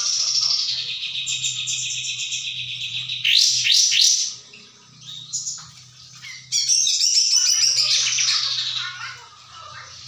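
Caged kapas tembak singing: a long, fast trilling phrase that ends in a few quick sweeping notes about four seconds in, a short pause with a couple of brief notes, then a second long rapid phrase from about six and a half seconds.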